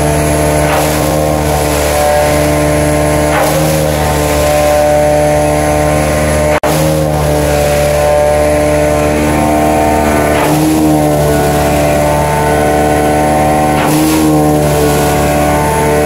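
Truck engine held at high RPM driving the pneumatic tanker's blower, running loud and steady while air and dense limestone are pushed down the product line. A rushing swell comes every three to four seconds.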